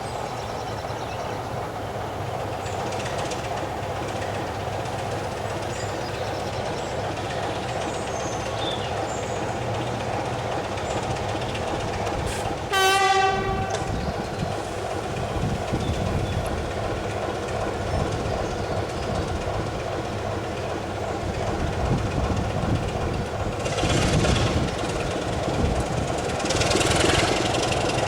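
A locomotive-hauled train runs with a steady mechanical drone. About halfway through it gives one short horn blast. Near the end there are two louder surges of noise.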